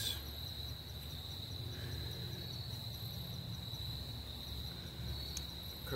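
Crickets chirping in a steady, continuous high trill over a low, even rumble.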